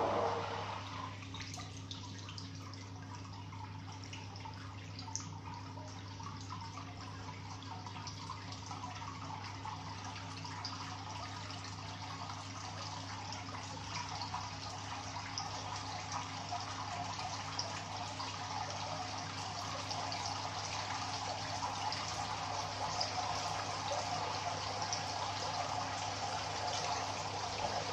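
Water splashing and trickling in a hydrographics dip tank as a part is pushed through and lifted out, with a steady low hum underneath. The water noise grows slowly louder.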